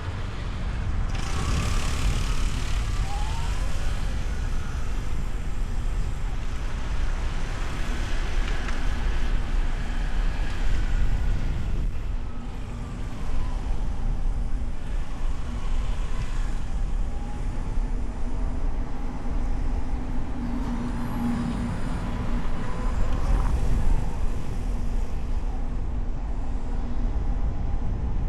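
Car driving through city traffic, heard from a mic on the hood: a steady low road and wind rumble, with the engines of nearby cars and trucks rising and falling as they pass.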